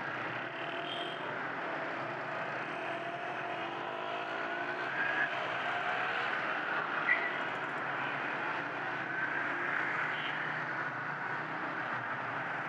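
Motorcycle engines running and accelerating in dense street traffic, their pitch rising as the pack pulls away, over steady road and wind noise. A brief sharp sound comes about seven seconds in.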